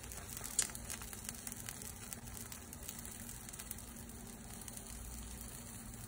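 Faint sizzling and crackling of corn cake batter cooking on a hot griddle, with a sharp click about half a second in.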